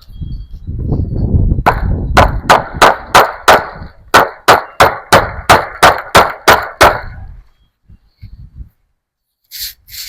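Fence staples being driven in to hold wire fencing: about fifteen sharp metallic strikes, roughly three a second, after a low rumble in the first second or so.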